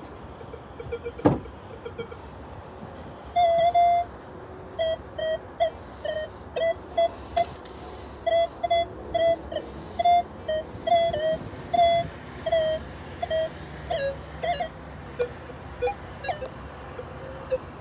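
Minelab Equinox 900 metal detector giving a quick, irregular run of short mid-pitched beeps as a rusty old iron is swept back and forth over its coil. A single sharp knock comes about a second in, before the beeping starts.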